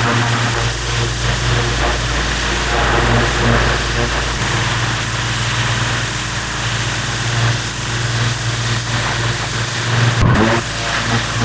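Pressure washer running: the lance's water jet hissing on wet stone paving slabs over the machine's steady motor hum. The sound breaks briefly about ten seconds in, then carries on.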